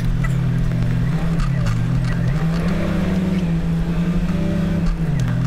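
Semi-truck diesel engine heard from the cab. It is idling, then revs up about a second in, holds for a couple of seconds, and drops back to idle near the end, as the tractor-trailer is backed into a parking spot.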